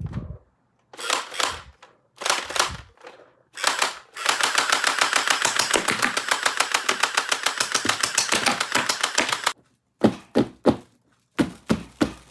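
Plastic toy parts and packaging being handled: a few short scratchy rustles, then a rapid, even run of plastic clicks, about six a second, lasting roughly five seconds, and a few sharp single clicks near the end.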